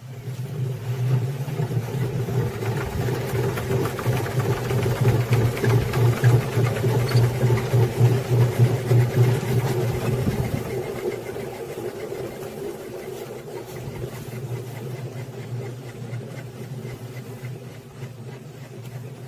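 Stainless-steel radial honey extractor, motor-driven through its gear head, spinning honeycomb frames with a steady mechanical whir. It runs loudest for about the first ten seconds, then settles to a lower, even hum.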